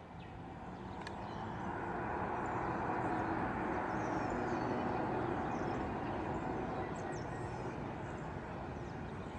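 ATR 72-600's twin Pratt & Whitney PW127M turboprops running up for takeoff: a steady propeller and engine drone that grows louder over the first few seconds, then holds.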